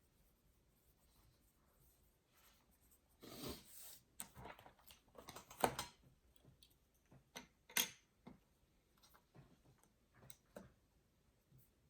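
Faint, scattered handling sounds at a study desk: small taps and clicks, a brief rustle a little over three seconds in, and two sharper clicks near six and eight seconds.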